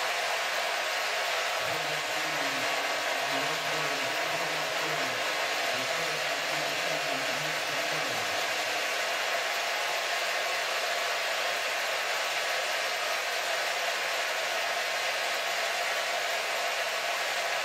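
Large stadium crowd applauding and cheering in a steady, unbroken roar.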